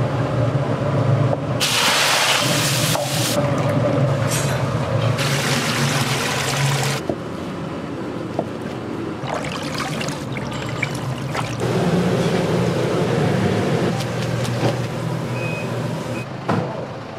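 A run of short restaurant-kitchen sounds cut together: bursts of liquid pouring and splashing over a steady low hum.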